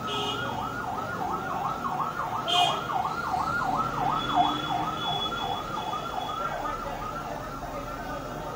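An electronic siren rising and falling rapidly, about three sweeps a second, in the yelp pattern of an emergency vehicle.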